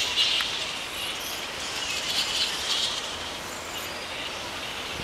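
Dense chorus of high-pitched animal calls and chatter, swelling briefly near the start and again midway, with a few sharp clicks.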